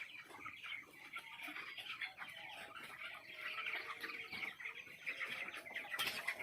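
A flock of poultry clucking and chirping softly, many birds calling over one another. There is one sharp click about six seconds in.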